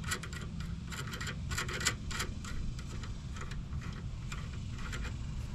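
Light metallic clicks and scraping from a new outer tie rod end being turned by hand on the threads of a 2009 Ford Fusion's steering linkage. The clicks come quickly for about the first two seconds, then only now and then, over a steady low rumble.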